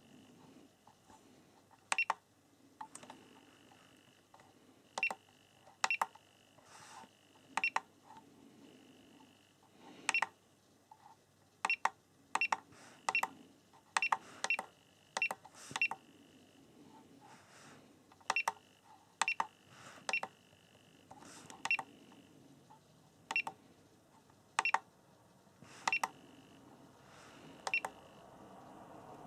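SkyRC T100 battery charger giving a short, high key beep with a click each time one of its front buttons is pressed. This repeats more than twenty times at irregular intervals as its menu is stepped through.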